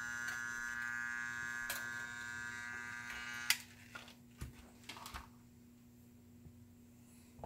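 Transformer-type soldering gun buzzing steadily while held on to heat a jumper wire joint on a circuit board. It cuts off with a click about halfway through as the trigger is released, followed by a few light knocks as the gun is set down.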